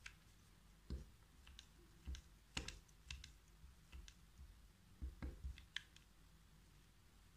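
Faint, irregular clicks and light taps from a hot glue gun and fingers handling a thin plastic cup while wires are glued into it.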